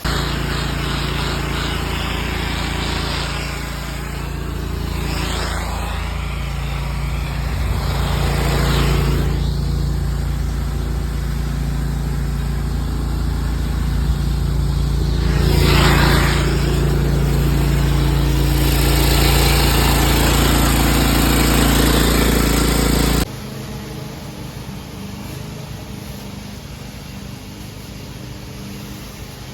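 Pressure washer engine running steadily while the water jet sprays, with a few louder surges of spray. About three quarters of the way through it cuts off suddenly to a quieter, steady hiss.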